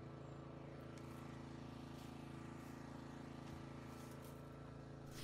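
Faint steady low hum made of several even pitched tones, with no other event.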